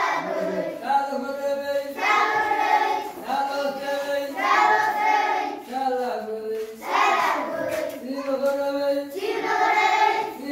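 A classroom of children chanting together in unison, in drawn-out phrases of a second or two with short breaks between them.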